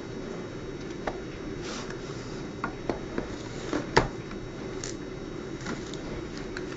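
Cardboard phone box handled as its printed outer sleeve is slid off: a few light taps, clicks and rubs, the loudest a knock about four seconds in, over a steady background hiss.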